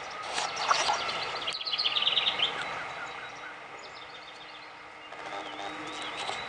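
Small songbirds chirping: several quick runs of high, repeated notes, the loudest about two seconds in.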